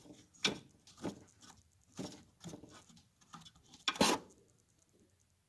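Irregular light clicks and knocks from hands working on a window air conditioner, about one or two a second, with the loudest knock a little before the end.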